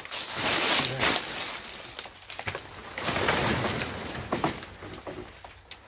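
A bird calling, with rustling of banana leaves and a few sharp clicks as the plant is handled.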